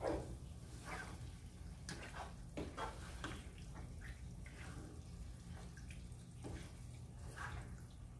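Wooden spatula stirring chunks of yogurt-marinated beef in a nonstick pan: soft wet squelches and scrapes at irregular intervals, over a low steady hum.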